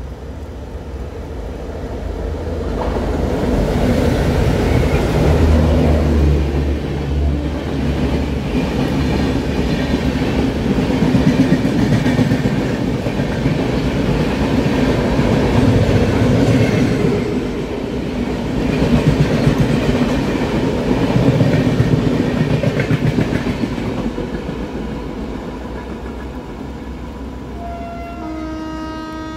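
Twin WDM3D ALCo diesel locomotives rushing past at about 80 km/h, their engines loudest around five seconds in, followed by the coaches clattering rhythmically over rail joints, then fading as the train draws away. Near the end a train horn blows, a short higher note and then a steady lower one.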